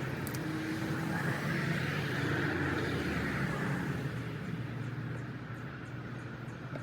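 A vehicle engine running steadily with a low hum, with a rushing noise that swells a couple of seconds in and then eases off.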